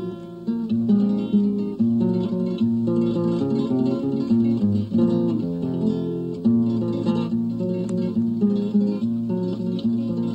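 Solo acoustic guitar played fingerstyle, a steady stream of quick plucked notes and chords with no pause.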